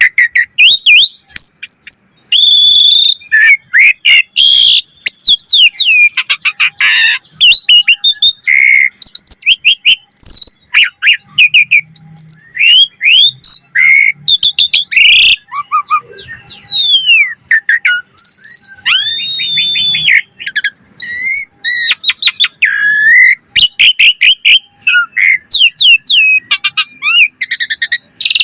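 Pied starling (jalak suren) singing a fast, varied song of whistles, rising and falling glides and rapid runs of clicking notes, with barely a pause.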